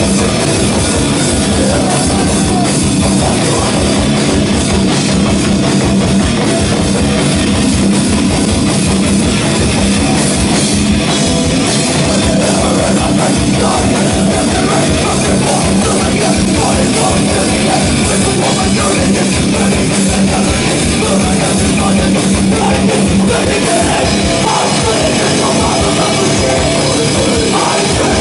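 Live extreme metal band playing loud and without a break: guitar, bass and drums in a dense wall of sound.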